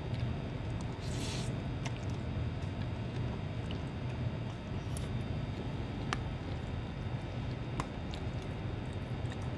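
Someone eating fried noodles with a spoon and fork from a plastic tub: a short slurp about a second in, soft wet chewing, and a few light clicks of the metal cutlery against the tub, over a steady low room hum.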